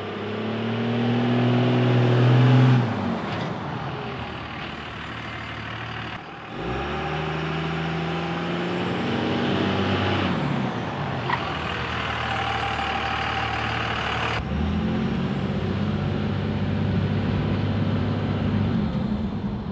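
Second-generation Dodge Ram's Cummins turbo-diesel engine pulling the truck along. Engine pitch rises to a peak about three seconds in and then falls as it lets off, climbs again, and settles into steady running near the end.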